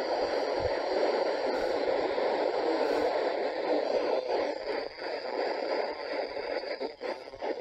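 CB radio receiver hissing with steady static from its speaker while listening on the band, which is full of noise and sideband. The hiss turns more uneven and a little quieter from about halfway.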